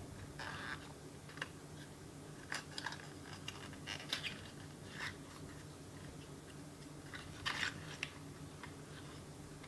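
Small package being handled and opened to get at keycap pullers: scattered soft crinkles, rustles and light clicks, a few slightly louder ones about half a second, four seconds and seven and a half seconds in.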